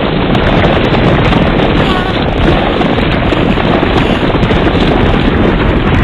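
Buffalo stampede sound effect: a loud, dense, steady rumble of many hooves.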